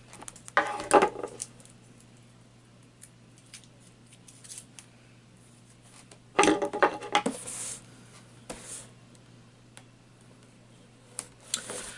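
Small knife cutting and scraping along the tape seal of a cardboard box, with small clicks and two louder bursts, about half a second in and about six and a half seconds in.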